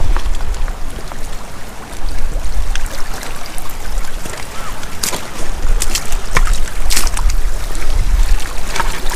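Wind buffeting the camera microphone in a gusting low rumble, over the wash and trickle of shallow sea water among rocks, with a few sharp clicks about two-thirds of the way through.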